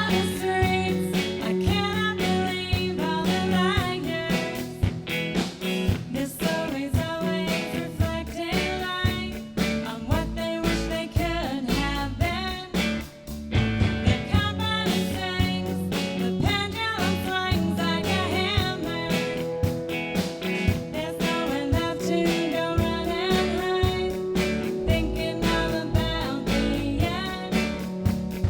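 A rock band playing live: guitars and drums with a singing voice. There is a brief drop in the music about halfway through.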